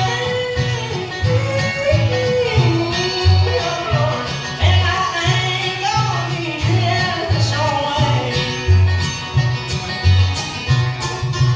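Bluegrass band playing: a lead melody line over strummed guitar and banjo, with a steady bass beat of about two notes a second.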